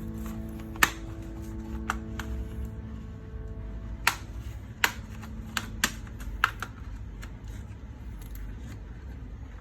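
Irregular sharp plastic clicks and taps from an HP 250 G6 laptop being handled and worked on during a RAM upgrade, about seven in all, most of them between two and seven seconds in. Held background music notes sound under the first four seconds.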